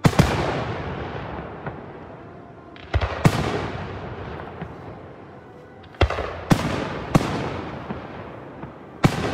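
Aerial firework shells bursting overhead: a sharp bang at the start, two about three seconds in, three between six and seven seconds, and another near the end, each trailing off in a long rolling echo.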